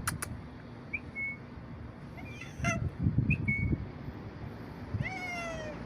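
Domestic cat making odd, brief high-pitched chirping calls, then a longer meow that falls in pitch near the end.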